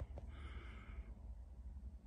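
A faint breath in a pause of speech, with a steady low hum underneath.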